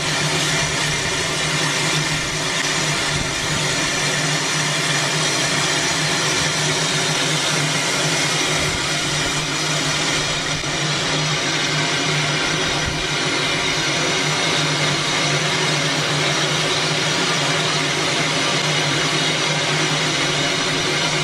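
Rio Grande Southern No. 20, a Schenectady-built steam locomotive standing under steam, hissing steadily with a constant low hum underneath.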